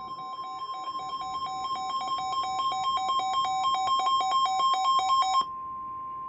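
NOAA Weather Radio warning alarm, a steady 1050 Hz tone, marking the start of a Special Marine Warning broadcast. Until about five seconds in, a second electronic alarm beeps rapidly over it at a lower pitch, growing louder, then cuts off suddenly and leaves the steady tone alone.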